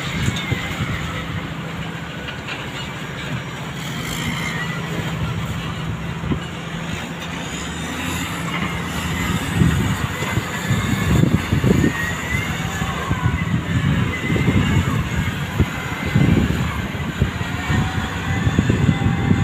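Heavy engines of ship-to-ship bulk loading machinery running with a steady low drone. From about ten seconds in, irregular low rumbles come and go over it.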